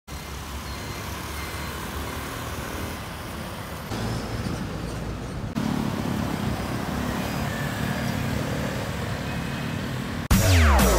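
Road traffic: cars and motorcycles passing on a multi-lane road, a steady noisy hum with engine rumble that steps up louder twice. Near the end, electronic music starts suddenly with falling swoops.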